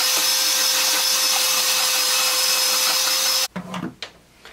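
Electric hand mixer running steadily, its beaters whirring through plum jam in a stainless steel bowl, switched off suddenly about three and a half seconds in; a few light knocks follow.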